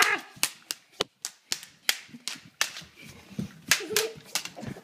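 A quick, irregular run of sharp taps and clacks, around fifteen in a few seconds.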